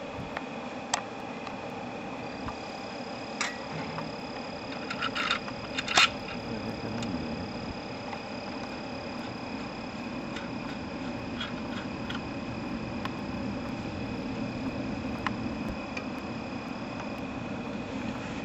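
Insects trilling steadily in the background, with a few short metallic clinks and knocks from hands and tools at the wheel hub's nuts and studs, the loudest about six seconds in.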